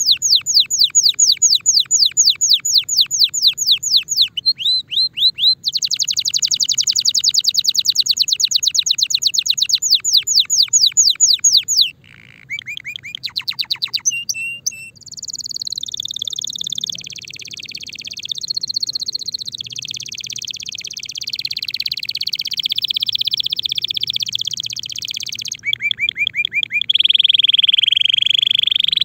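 A Timbrado canary in breeding condition singing. It opens with long, fast rolls of rapidly repeated falling notes, moves into varied short phrases and then a continuous rolling warble. Near the end comes another brief fast trill and a held, steadier note.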